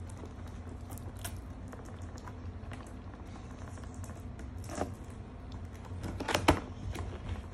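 Cardboard toy box being handled and shifted: light taps, scrapes and clicks, with a louder knock or two late on, over a steady low hum.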